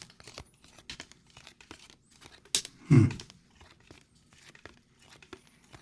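Trading cards being handled and shifted about: small scattered clicks and scrapes, with one louder crackling rustle about three seconds in.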